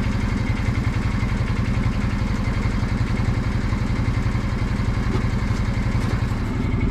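Engine of the vehicle moving the sawmill trailer, running steadily at a low, even speed.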